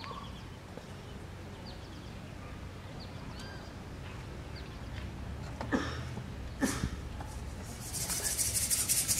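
Birds chirping faintly. Two sharp knocks come about six and seven seconds in. Near the end a rapid, high, shimmering rattle starts.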